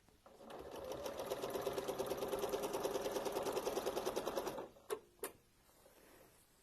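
Sewing machine stitching a rapid, even run of stitches during free-motion ruler quilting. It comes up to speed over the first second, stops abruptly after about four seconds, and is followed by two sharp clicks.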